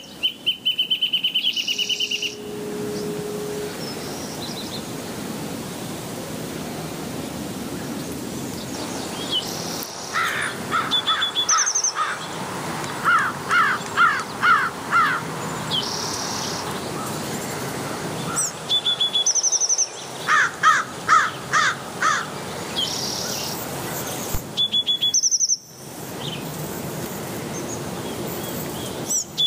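Wild birds chirping and singing over a steady outdoor hiss: a buzzy trill near the start, scattered high short calls, and two runs of quick sweeping notes, one in the middle and one a little later.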